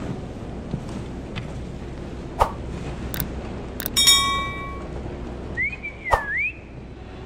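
Subscribe-button animation sound effects: a few sharp clicks, then a bell-like chime about four seconds in that rings out for about a second, followed by a whistled tone that glides up, down and up again, over steady background noise.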